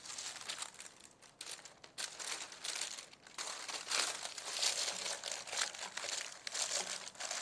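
Sheet of parchment (baking) paper being crumpled and crinkled in the hands, an uneven crackling rustle, then pressed and smoothed onto the base of a tart pan near the end.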